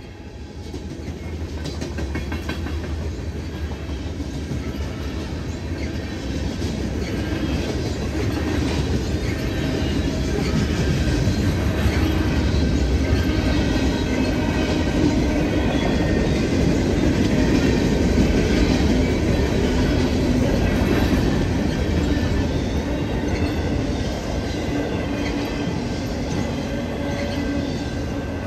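Union Pacific freight train's cars rolling fast through a grade crossing: a steady heavy rumble with the clickety-clack of wheels clicking over the rails, growing louder over the first several seconds.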